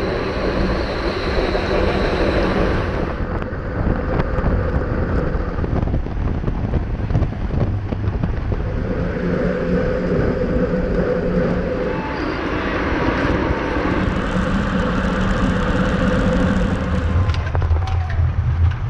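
Wind and road noise on a camera riding with a pack of racing bicycles, under a steady engine hum from race motorbikes; a deeper engine hum grows louder near the end.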